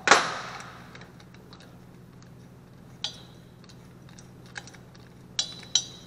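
Steel head bolts of a Honda GXV160 engine clinking against the aluminium cylinder head as they are set into it by hand: one loud metallic knock at the start, then a few light ringing clinks in the second half.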